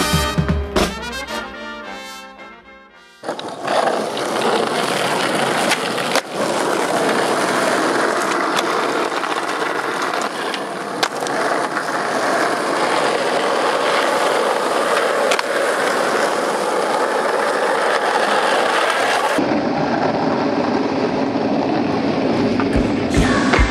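Skateboard wheels rolling on asphalt: a steady, even rolling noise with a few sharp clicks, after music fades out over the first three seconds.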